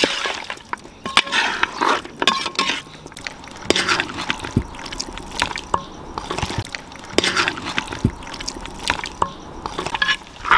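A perforated metal ladle stirring thick, wet camel-head curry in a large metal pot: irregular squelching and slopping, with short clicks and scrapes of the ladle against the pot.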